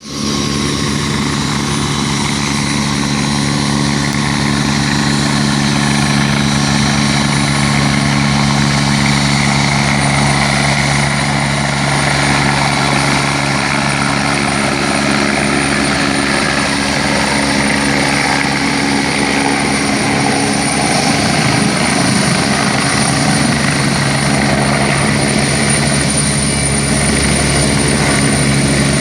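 Helicopter coming in to land, its rotor and engine running loud and steady: a constant low rotor hum over a broad rushing noise.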